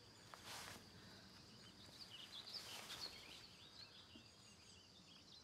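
Faint outdoor ambience with small birds chirping, and two soft rustles.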